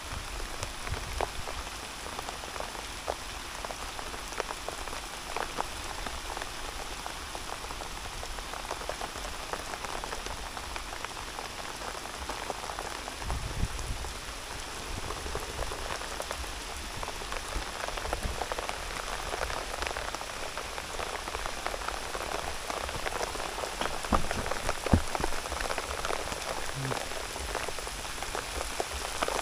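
Steady rain falling, made up of a dense run of separate drop hits.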